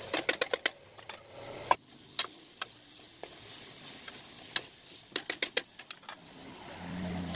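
Metal ladle clinking and scraping against an aluminium karahi as chicken karahi is stirred. There is a quick run of clinks at the start, single knocks after that, and another quick run about five seconds in.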